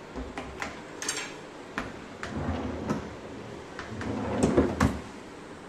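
Cabinet under a fish tank being opened and handled: a string of light clicks and knocks with a low sliding rumble. The loudest knocks come a little before the end.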